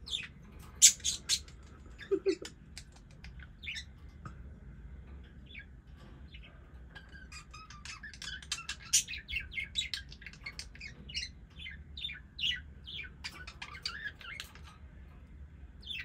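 Pet budgies (budgerigars) chirping: a few loud, sharp chirps about a second in, then a quick, busy run of short chirps from about halfway through that stops just before the end.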